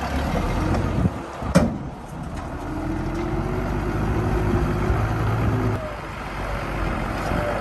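Diesel engine of heavy earthmoving equipment running, with a sharp clank about a second and a half in and a whine that rises and holds for a few seconds before fading.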